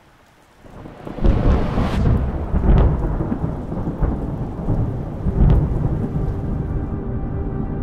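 Thunder-like sound effect: a deep rolling rumble with crackling that swells in about a second in and surges several times. Near the end a held musical drone comes in under it.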